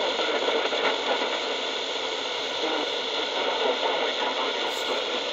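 Steady shortwave static hissing from a small solar and hand-crank emergency radio's speaker, with no clear station coming through.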